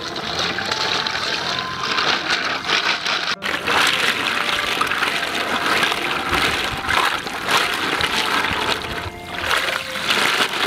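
Water sloshing and splashing as a woven bamboo basket of snails is swished through shallow pond water, with water streaming and trickling out through the weave as the basket is lifted near the end.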